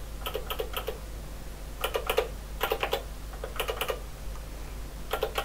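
Keys of an HP 9100B calculator's keyboard being pressed in quick runs, clicking in about five short bursts over a low steady hum.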